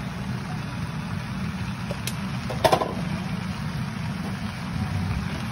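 Steady low hum of a kitchen fan over an induction cooktop, with a faint click about two seconds in and a short, louder clatter just after.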